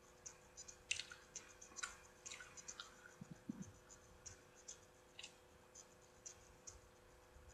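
Faint mouth sounds of someone chewing a soft cinnamon roll: scattered small wet clicks and smacks, sometimes several a second, over a low steady hum.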